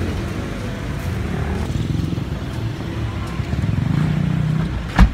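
A motor vehicle engine running close by, growing louder about four seconds in, then a single sharp knock near the end.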